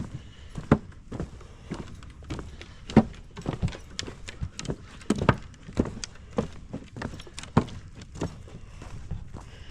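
Footsteps of a person walking along a woodland trail: uneven steps, about one or two a second, a few of them heavier thuds.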